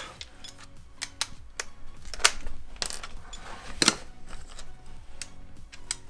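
Scattered metallic clicks and clinks of small hand tools and driver bits being handled, with sharper clinks about two and four seconds in.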